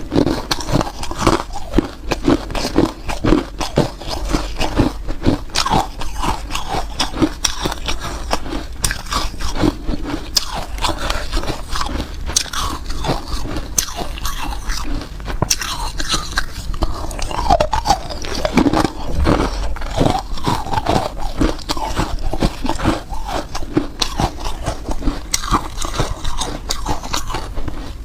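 Hard ice being bitten and chewed: a dense, uneven run of crunches and sharp cracks as the ice breaks between the teeth.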